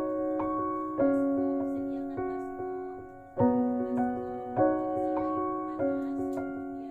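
Background piano music: chords and single notes struck at an unhurried pace and left to ring and fade.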